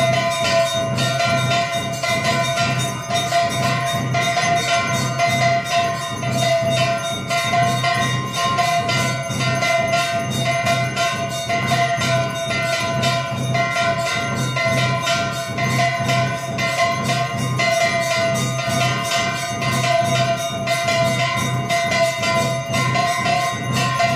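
Brass kansar (flat plate gong) beaten rapidly and steadily with a stick for an aarti, the metal ringing continuously beneath the strikes.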